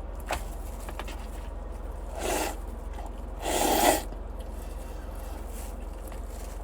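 Two loud slurps of instant noodles, a short one about two seconds in and a longer one about a second later, over a steady low hum.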